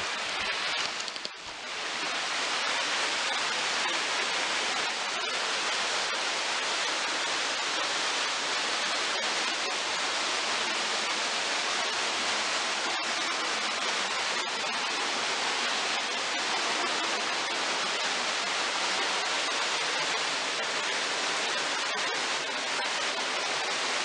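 Small waterfall pouring into a rock pool: a steady, even rush of falling water.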